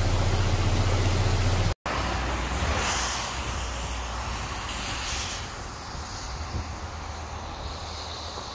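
Loud rushing of a muddy flash flood with a deep rumble, cut off abruptly just under two seconds in. Then a quieter, steady rush of wind on the microphone over open ground, swelling a little twice before settling lower.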